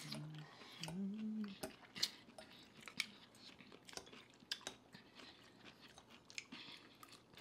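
Close-miked eating sounds: chewing, lip smacks and small scattered clicks, with two short hummed "mm" sounds in the first second and a half, the second one rising in pitch.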